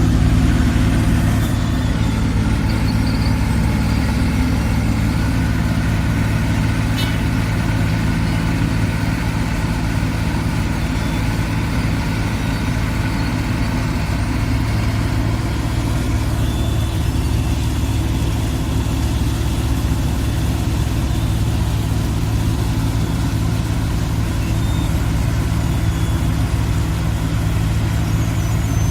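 Diesel engine of a Wirtgen W 100 F asphalt milling machine running steadily at a constant speed.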